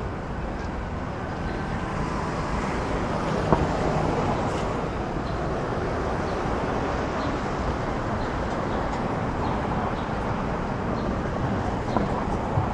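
City traffic noise: a steady rush of cars on the street, with a sharp click about three and a half seconds in and another near the end.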